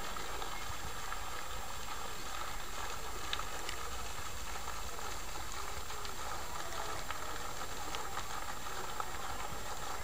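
Pond fountain jet splashing steadily back into the water: a continuous watery hiss with a few faint ticks.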